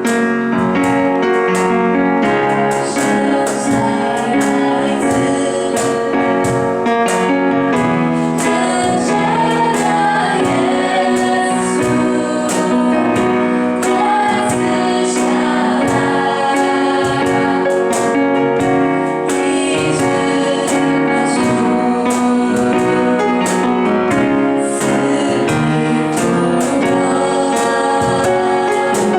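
A group of voices, with women's voices prominent, singing a Christian worship song together to piano accompaniment, with a steady beat.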